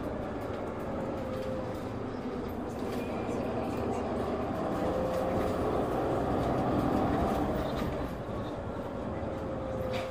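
Running sound of a Hino Blue Ribbon City hybrid city bus: a steady engine and drivetrain hum with a faint whine that wavers in pitch. It grows louder over the first seven seconds, then drops back about eight seconds in.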